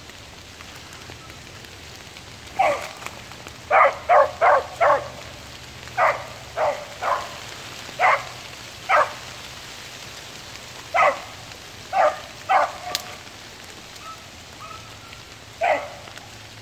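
Beagle hound giving tongue on a cottontail's scent trail: about fourteen short barks at irregular intervals, including a quick run of four about four seconds in. Steady rain falls on the leaves behind.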